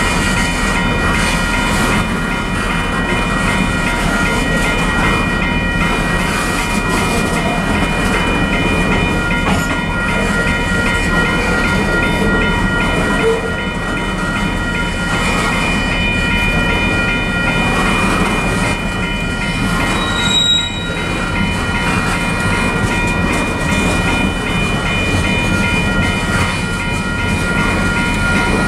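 Freight train covered hopper cars rolling past close by: a steady loud rumble of steel wheels on the rails, with several steady high-pitched tones running over it. About twenty seconds in there is a brief, higher squeak.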